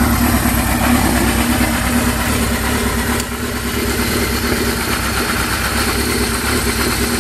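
Kawasaki KZ1000 air-cooled inline-four with a one-off custom exhaust idling steadily.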